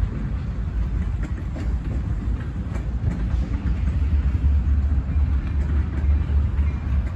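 Diesel freight train rolling by: a steady low rumble that grows a little louder about halfway through, with scattered faint clicks from the wheels.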